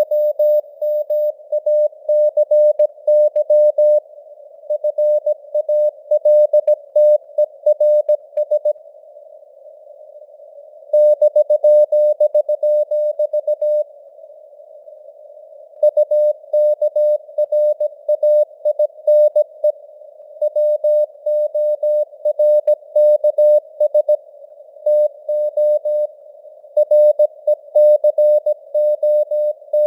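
Morse code (CW) sent at 17 words per minute as a keyed tone of about 600 Hz, in a narrow band of simulated radio noise. The keying breaks off twice for a second or two, around a third and about halfway through.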